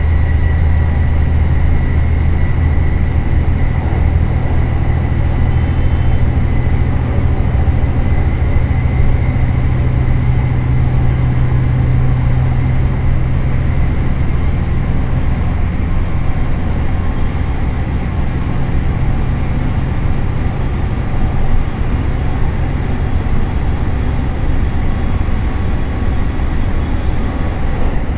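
Inside an ET122 diesel railcar running under power in fourth direct-drive gear. The Komatsu SA6D140HE-2 six-cylinder diesel engine gives a deep, steady drone that eases slightly past the middle, with a thin high whine from the DW21 transmission's gears over it.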